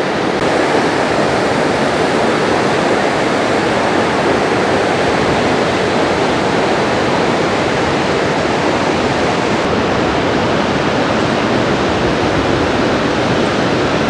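Barachukki Falls on the Kaveri river: many broad cascades of water pouring down the rocky gorge, a steady, even rush of falling water.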